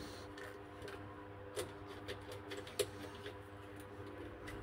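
Scattered light clicks of a screwdriver working the terminal screws of miniature circuit breakers in a distribution board, the two loudest about a second and a half and about three seconds in, over a steady low hum.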